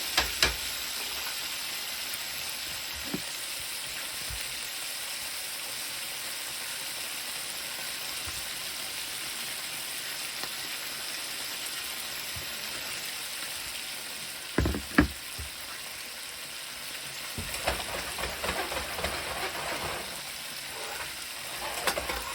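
Food frying with a steady sizzle. It is broken by a couple of sharp knocks at the start, two loud knocks about two-thirds of the way through, and a few seconds of utensil clatter near the end.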